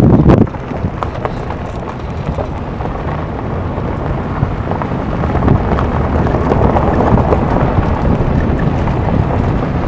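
Wind buffeting the microphone at an open window of a moving vehicle, over the low rumble of tyres on a gravel road, with a heavier buffet in the first half second.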